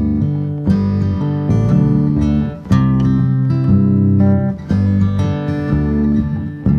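Background music played on plucked acoustic guitar, with notes struck in a steady rhythm.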